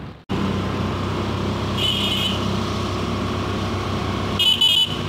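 Road vehicle engine running steadily while driving along a road. A short high-pitched toot sounds about two seconds in, and two more come close together near the end.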